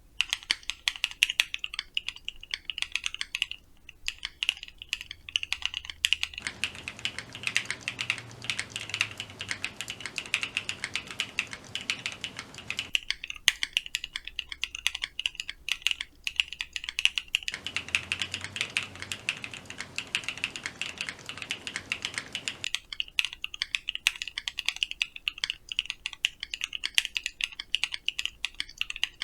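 Fast typing on a Freja65 O-ring-mounted mechanical keyboard with a POM plate, NLand Flower Shadow switches and PBT keycaps: a dense, steady run of keystroke clacks with brief pauses. It is recorded with scuffed sound quality.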